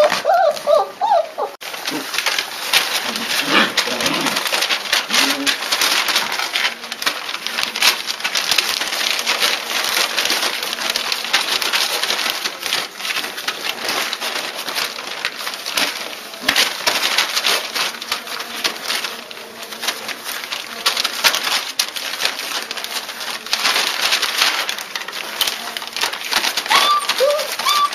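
A litter of German shepherd puppies: a steady busy scuffle of clicks and rustles, with a few low grunts a few seconds in and high rising-and-falling whines near the end.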